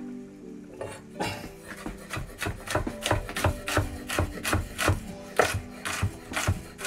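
Large kitchen knife chopping rapidly on a wooden chopping board, about three strokes a second, starting about a second in and growing louder.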